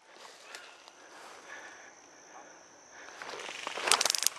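Steady high trill of insects, crickets, in the woods. About three seconds in, rustling of movement through brush and leaf litter grows louder, ending in a quick run of sharp clicks or snaps near the end.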